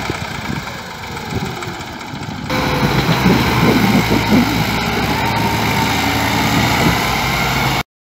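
Massey Ferguson tractor's diesel engine labouring under heavy load as it pulls a loaded earth trolley across soft ground. The sound steps up louder about two and a half seconds in and cuts off abruptly near the end.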